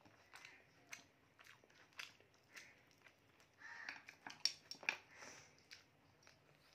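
Faint eating sounds: fingers working rice and mutton curry on a plate, with wet chewing and lip-smacking, and a few sharper clicks about four to five seconds in.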